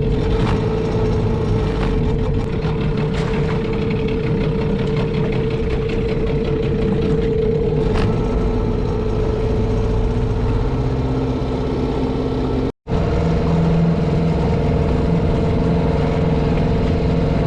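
Outboard motor of a small aluminium boat running steadily under way, with a constant hum over wash and wind noise. A brief break about 13 s in, after which the motor continues at a different note.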